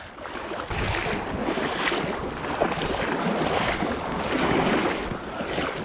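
Steady rushing of a small river's current, with wind buffeting the microphone.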